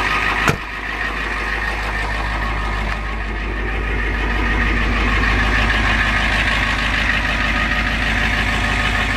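1990 Ford F-350's 7.3-litre IDI diesel V8 idling steadily shortly after a cold start at about 40 °F. A single sharp knock about half a second in, the truck's door being shut, and the idle grows a little louder after a few seconds.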